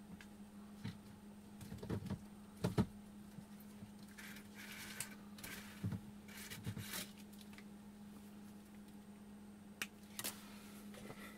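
Scattered light clicks, knocks and rustles from hook-up wire and small parts being handled on a workbench, over a faint steady low hum.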